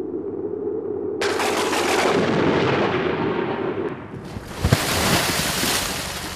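Thunder: a sudden sharp crack about a second in that crackles and fades away over a few seconds, then a second crack with a long rushing rumble near the end, over a low droning tone that drops away midway.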